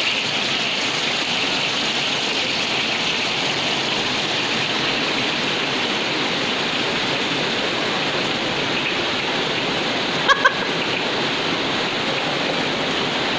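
Spices and oil frying in a wok over a gas flame: a steady sizzle. There are two quick clinks about ten seconds in.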